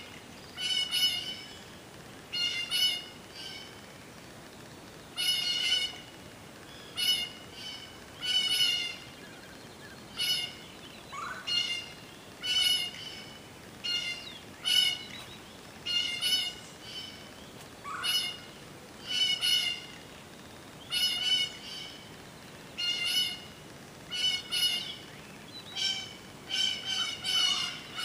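A bird calling over and over, short harsh calls coming singly or in quick runs of two or three every second or two. A few brief rising whistles from another bird come in between.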